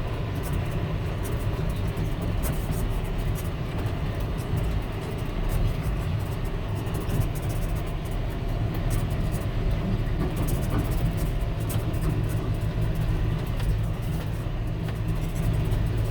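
Tractor engine running steadily under load, an even low drone with no change in speed.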